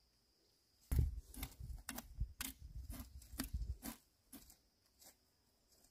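Hand hoes chopping into dry soil and weeds: a run of sharp strikes, about two or three a second, starting about a second in, then a few scattered strikes.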